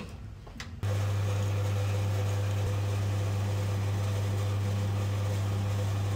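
A few metal clicks as the portafilter is locked into the espresso machine's group head, then about a second in the machine's pump starts with a loud, steady low hum as it pushes water through the coffee to pull an espresso shot.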